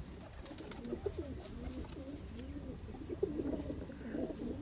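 Domestic pigeons cooing, a run of low, wavering coos that rise and fall one after another.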